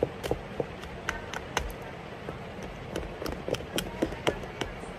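Small plastic tool clicking and tapping against a plastic plate while cutting and shaping play sand: a string of irregular sharp clicks.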